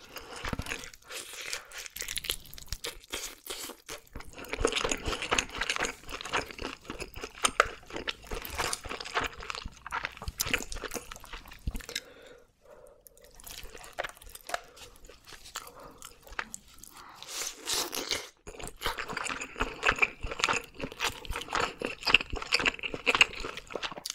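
Close-miked chewing of oven-grilled red sea bream flesh: wet mouth sounds and many sharp little clicks, with a quieter pause about halfway through.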